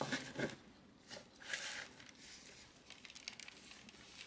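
Quiet handling sounds of gloved hands working with a gel polish bottle, brush and press-on nail: a few short rustles, then a run of small clicks.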